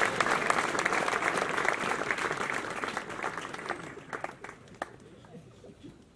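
Audience applauding with many hands clapping. The clapping thins out over the first few seconds into a few scattered claps and dies away about five seconds in.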